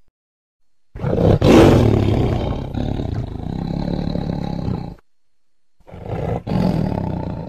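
Google 3D augmented-reality Bengal tiger's recorded roar, played twice: the first starts about a second in and lasts some four seconds, the second starts near six seconds.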